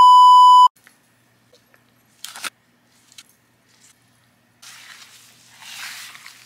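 A loud, steady electronic beep lasting under a second, the kind of one-tone bleep laid over a swear word, followed by a brief rustle about two seconds in and a soft, hissy shaking and rustling from about four and a half seconds in, as seasoning goes onto chicken wings.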